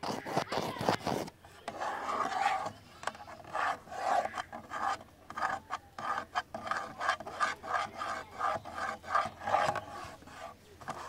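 ASMR scratching on a camera body: a quick flurry of taps, then rasping scratch strokes in a steady rhythm of about three a second.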